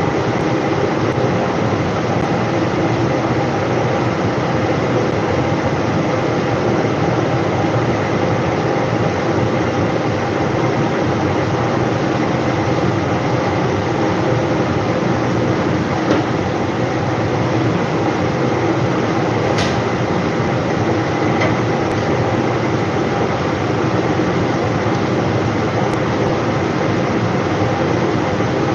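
Kitchen range hood's extractor fan running with a loud, steady rushing noise, with a couple of brief clicks partway through.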